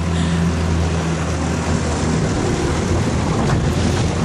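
A 30 hp Yamaha outboard motor on a small aluminium-size 14-foot boat running steadily at speed, heard from aboard, with a steady rush of wind and water.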